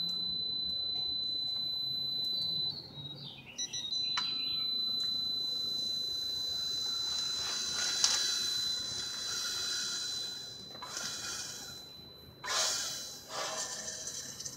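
Pittsburgh Pro digital torque adapter sounding its steady high-pitched alarm tone while a Ford 300 inline-six is turned over by hand, showing the set torque has been reached. The tone breaks off briefly about three seconds in and stops about ten seconds in; a few short rushes of noise follow near the end.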